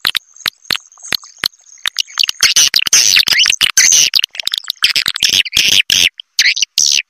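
Recorded swiftlet roosting call of the kind played to draw birds into a swiftlet house. A run of rapid sharp clicks opens it, and dense high-pitched chirping and twittering follows from about two seconds in, broken by short gaps.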